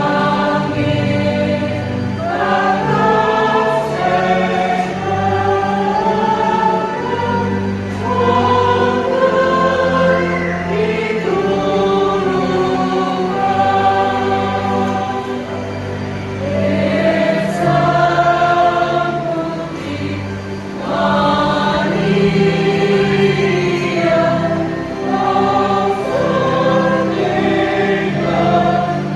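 A choir singing a hymn-like piece over sustained low accompanying notes, with phrases rising and falling and short breaks between them.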